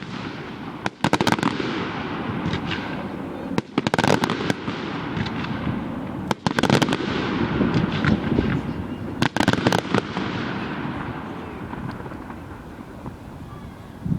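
Fireworks display: a sharp bang about every two to three seconds, each followed by a long fading wash of crackle and echo. The bursts thin out near the end.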